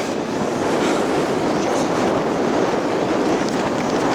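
Steady rushing and rumbling of wind buffeting the microphone on an open beach.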